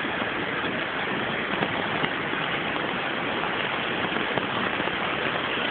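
Fast-flowing muddy floodwater rushing, a steady noise of water.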